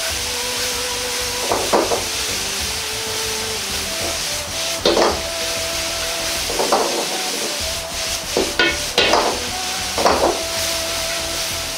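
Beef, onion and ginger sizzling steadily in a hot wok, with about six short scrapes as the mix is stirred and pushed across the pan.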